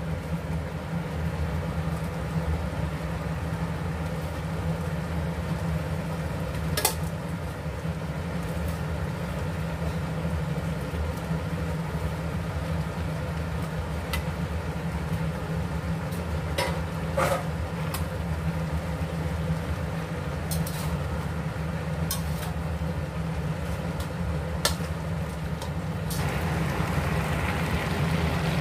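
Kitchen cooking sounds over a steady low mechanical hum: a few sharp clinks of utensils against a stainless pan and bowl as glass noodles are added. Near the end a hissing sizzle rises as the pan simmers.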